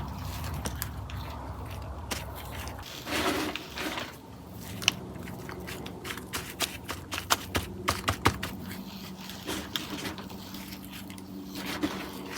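Soil being scraped and pressed over freshly sown bean seeds, with irregular scraping, crunching and many small clicks.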